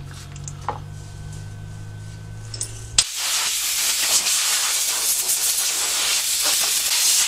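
Compressed-air blow gun blowing solvent off a cleaned steel front spindle: a loud steady hiss that starts suddenly about three seconds in and holds for about five seconds. Before it, a low steady hum.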